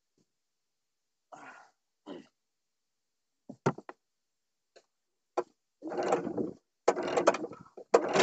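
A 25-horsepower outboard motor is pull-started by its recoil cord. A few soft handling sounds and clicks come first. Then, from about six seconds in, come three pulls, each a short rasping crank, and the engine catches on the last pull at the very end.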